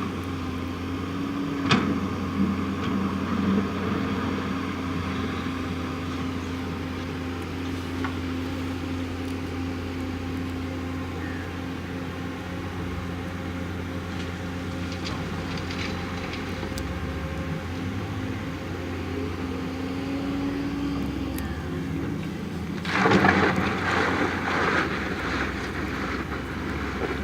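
JCB backhoe loader's diesel engine running steadily under working load, with a steady whine that swings up and down in pitch partway through. A sharp clank comes about two seconds in, and a loud burst of rattling and clattering comes near the end.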